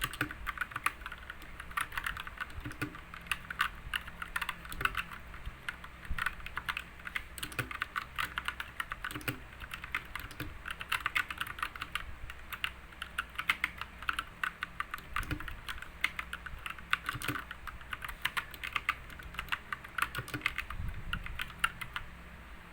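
Computer keyboard being typed on one-handed for a sound test: a fast, irregular run of key clicks that stops just before the end.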